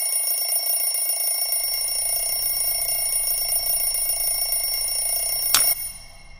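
Twin-bell alarm clock ringing continuously with a fast metallic rattle, then cut off by a sharp click about five and a half seconds in.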